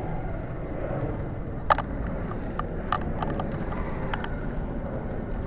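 Steady low rumble of wind on the microphone while a spinning reel is cranked against a hooked little tunny (false albacore), with scattered sharp clicks, the loudest about a second and a half in.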